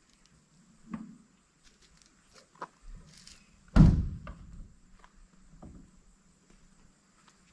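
A few light knocks and clunks, with one heavy, loud thunk about four seconds in.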